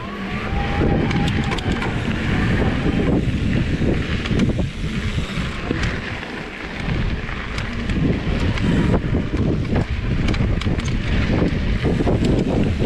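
Wind buffeting a handlebar-mounted action camera's microphone, over the rumble of a mountain bike's tyres rolling on a dirt trail, with scattered clicks and rattles from the bike.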